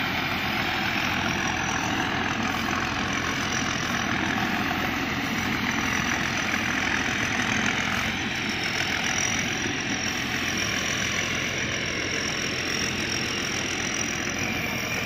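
Pan Charoen 2018 tracked rice combine harvester running steadily under working load, its engine and threshing machinery making a dense, even noise with a high steady whine on top.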